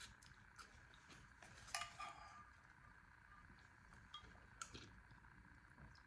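A few faint clinks of a utensil against a soup bowl, the loudest just under two seconds in with a short ring, over a faint steady hum.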